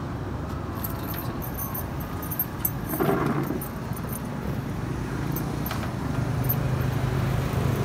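Steady road-traffic rumble with scattered light metallic clinks from kitchen utensils being handled. A low engine hum grows steadier in the second half.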